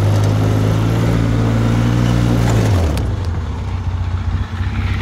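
ATV engine running steadily at a constant speed, then dropping to a lower idle about halfway through.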